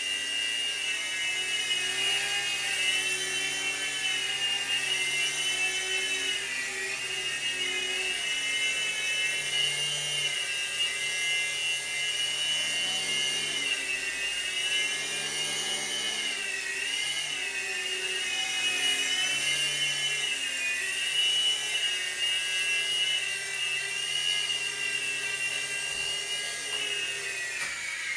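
Revell Rotobot three-channel micro RC helicopter in flight: its small electric motors and rotors give a steady high whine whose pitch wavers up and down as the throttle changes.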